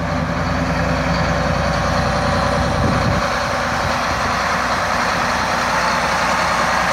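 John Deere 8295RT tracked tractor's six-cylinder diesel engine running steadily as the tractor drives slowly on its rubber tracks, with a brief swell in the low engine note about three seconds in.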